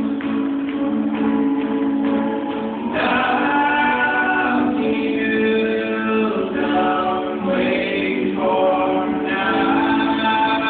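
Folk-rock band playing live: voices singing over acoustic guitars and an upright bass, with new sung phrases coming in about three seconds in and again near the end.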